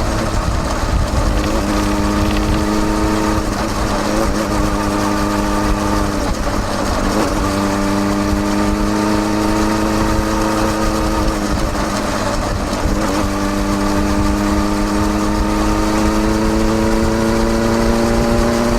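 Exhaust of a Kawasaki Balius 250 cc inline-four through a Wr's aftermarket muffler with its baffle fitted, recorded close at the silencer while riding at town speeds. The steady exhaust note breaks off briefly a few times and picks up again, climbing slightly in pitch near the end.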